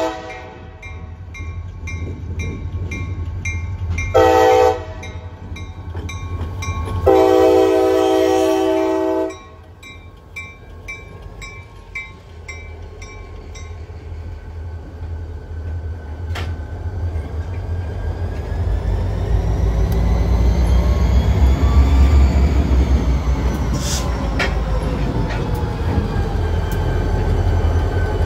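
Diesel freight locomotive horn: the tail of one blast, a short blast about four seconds in and a long blast a few seconds later, with a bell ringing steadily about twice a second. The locomotives' diesel engines then rumble past close by, loudest around the middle of the passing, with wheels clicking on the rail joints.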